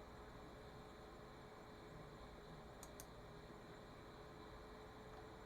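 Near silence: room tone with a faint steady electrical hum, and two faint clicks close together about three seconds in.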